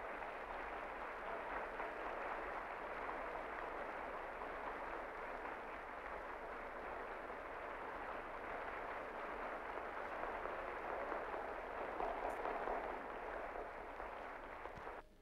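A large audience applauding: dense, steady clapping that cuts off abruptly just before the end.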